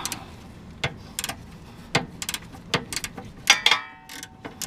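Irregular metallic clicks and clinks of a socket ratchet working a 17 mm bolt loose, with a short metallic ring about three and a half seconds in.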